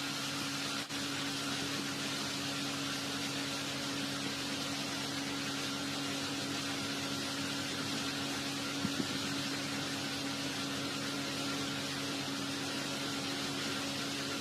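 A steady electrical-sounding hum with a faint hiss underneath, unchanging throughout, with no voices or music.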